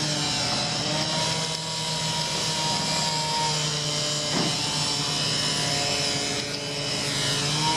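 Power saw running steadily as it cuts through a pipe dug up from the ground, the cut throwing sparks.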